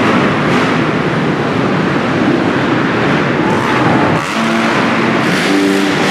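Several motocross bikes racing on an indoor dirt track, engines revving hard and backing off over the jumps. The sound echoes around the arena.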